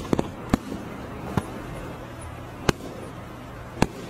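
Several sharp, separate pops or clicks at irregular intervals, about five or six in four seconds, over a low steady hum.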